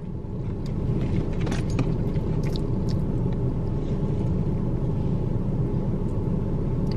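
Car engine idling, a steady low rumble heard inside the car's cabin, swelling slightly in the first second and then holding even.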